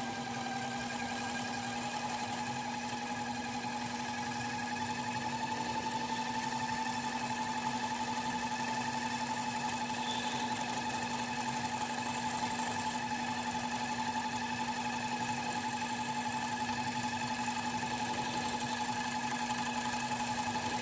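Motorised line spooler spinning a large conventional fishing reel as 80-pound braided line winds onto it: a steady motor whine over a low hum, its pitch climbing a little in the first couple of seconds as it comes up to speed.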